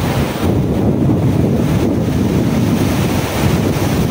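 Strong storm wind blowing in gusts through palms and trees, buffeting the phone's microphone with a loud, rough low rumble.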